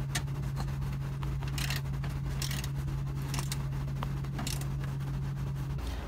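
Hand tools clicking and scraping on metal while the old retractable-step motor is unbolted from under the RV, over a steady low hum that stops near the end.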